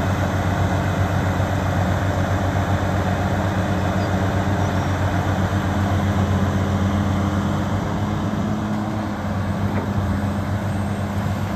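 Hitachi EX400LC-3 excavator's Isuzu diesel engine running steadily under working load as the boom and bucket dig. Its note changes about nine seconds in.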